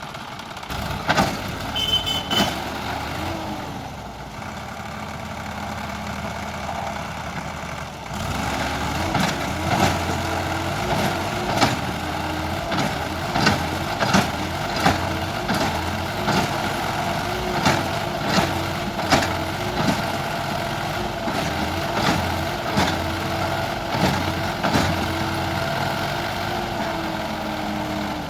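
Heavy diesel machinery working a mud-loading job: an engine running under load, its pitch rising and falling, with repeated sharp clanks and knocks from about nine seconds in.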